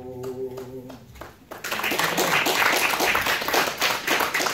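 A man's singing voice holds the final note of a gospel song and stops about a second in. A small congregation then breaks into applause, with voices among the clapping.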